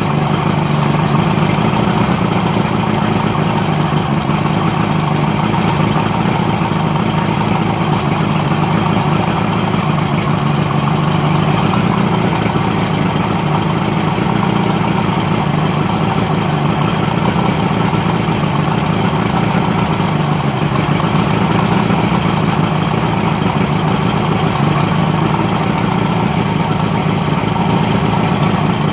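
1972 Mercury 115 'Tower of Power' inline-six two-stroke outboard running steadily at idle with its cowling off, on its first startup.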